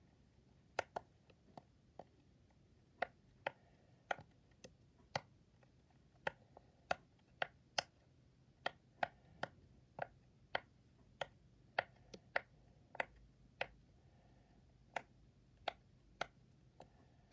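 Silicone push-pop fidget toy having its bubbles pressed through one after another: a string of faint, sharp little pops, irregular at roughly two a second with a few short pauses.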